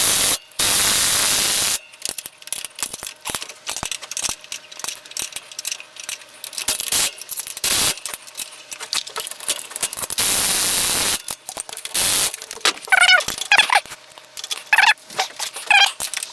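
Bolts on a motorcycle rear shock mount being tightened with a ratchet wrench: rapid, irregular metallic clicking. Two short bursts of steady hissing noise come between the clicks, and a warbling pitched sound comes in near the end.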